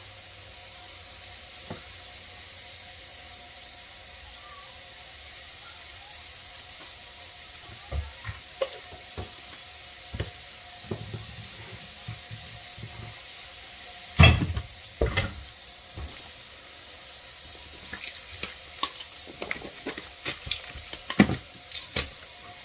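Mushrooms and zucchini frying in oil and butter in a skillet, a steady sizzle. Light clicks and knocks of handling come in from about eight seconds in, the loudest a sharp knock about halfway through.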